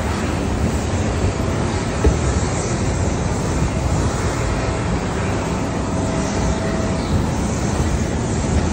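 Steady noise of aircraft running on the apron, with a faint whine from about four to seven seconds in.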